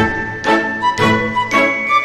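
Background music with a steady beat of about two strikes a second and bright, tinkling bell-like tones.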